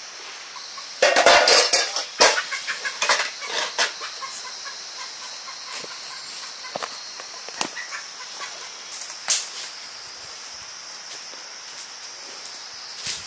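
A chicken squawking loudly for about three seconds, starting about a second in, then a few short clucks and clicks.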